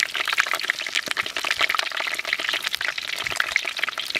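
Hot oil sizzling and crackling steadily around a whole fish deep-frying in a wok.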